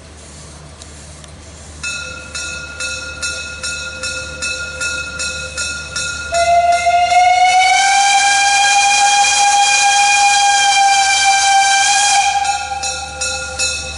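Steam locomotive approaching under steam, with regular beats at about three a second from about two seconds in. About six seconds in, its steam whistle sounds one long blast of about six seconds, gliding up in pitch as it opens and then holding steady.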